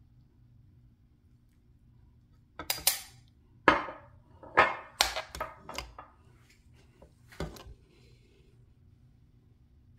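Metal ladle clinking and knocking against the side of a stainless steel pot as it scoops coconut-milk stew, a run of sharp clinks starting about three seconds in and ending with one last knock near seven and a half seconds.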